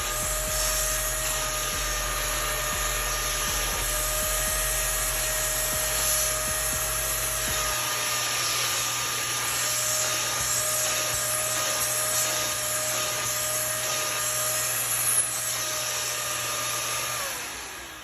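Hart 3-in-1 wet/dry vacuum and extractor running steadily with a high whine, then switched off near the end, its whine falling as the motor spins down.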